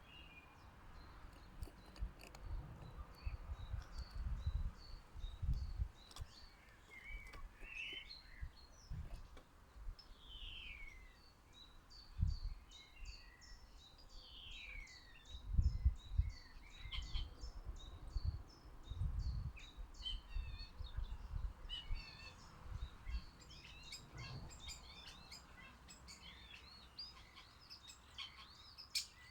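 Small garden birds chirping and calling around a feeder: many short, high chirps throughout, with a few longer calls that slide downward in pitch. Irregular low rumbling bursts sit underneath, loudest about a third and halfway through.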